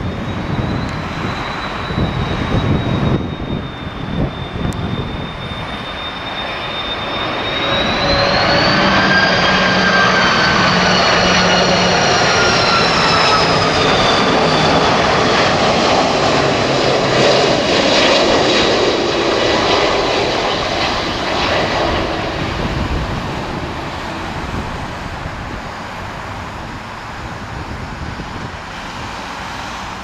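Airbus A330 airliner's twin jet engines whining as it flies low overhead on final approach. It is loudest about eight to fifteen seconds in, and the whine rises in pitch, then slides slowly down and fades as the aircraft passes. Gusty wind on the microphone in the first few seconds.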